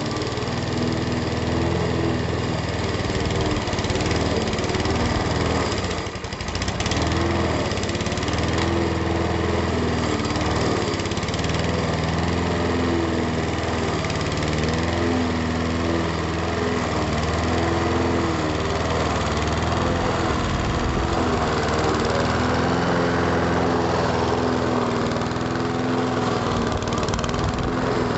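Honda HR173 petrol rotary lawnmower running at a steady speed while cutting thick, overgrown spring grass. Its engine note dips briefly about six seconds in.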